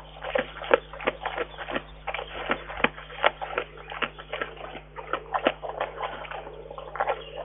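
Brown bear eating food off a log close to the microphone: a quick, irregular run of smacking, licking and crunching sounds, several a second.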